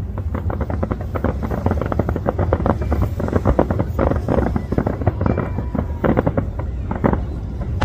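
Aerial fireworks going off in rapid succession: a dense, continuous run of bangs and crackles with low booms underneath.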